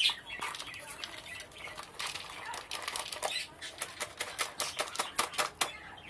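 Soaked wheat grains poured from a plastic cup onto a plate, the wet grains landing in a rapid run of clicks that grows denser in the second half.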